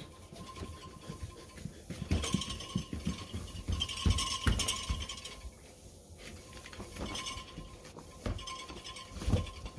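A cleaning wipe being rubbed and scrubbed over a dishwasher's surface: irregular rubbing strokes with light knocks of hand and wipe against the appliance, busiest a couple of seconds in.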